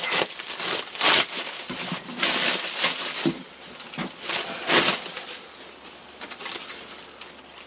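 Plastic shrink wrap being pulled and torn off a metal equipment rack, crinkling and crackling in irregular bursts that grow quieter in the last couple of seconds.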